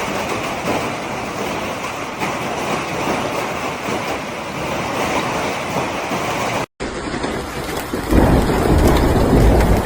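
Storm noise: a steady, dense hiss of heavy rain or hail falling. It cuts off abruptly about two-thirds of the way through, and after a second of lighter noise a much louder low rumble sets in, like strong wind on the microphone.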